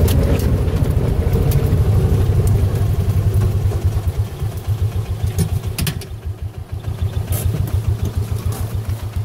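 Vehicle engine running at low speed with a rapid, even pulse, easing off slightly about six seconds in, with a few sharp clicks over it.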